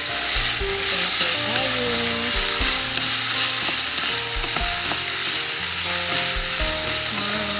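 Pork pieces sizzling steadily in a hot frying pan as a wooden spatula stirs them, with background music playing over it.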